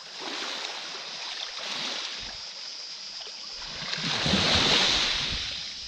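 Small sea waves washing in over a pebble beach, one wave swelling and breaking louder about four seconds in.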